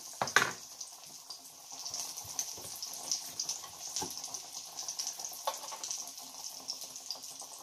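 Breaded green tomato slices frying in hot oil in a skillet: a steady sizzle with faint crackling, and a few light clicks of metal tongs against the pan, the loudest just after the start.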